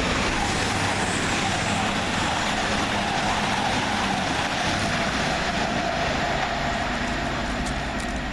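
Two coupled Class 220 Voyager diesel-electric units passing through the station: a steady rumble of underfloor diesel engines and wheels on rail, easing off slightly near the end.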